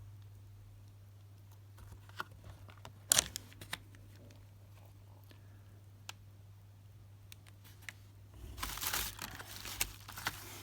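Packaging being handled: a few light clicks and taps, then about two seconds of crinkling and rustling near the end, over a low steady hum.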